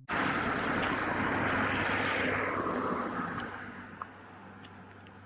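An aircraft passing, a loud steady rush of engine noise that fades away after about three seconds, leaving a quieter outdoor background with a faint low hum.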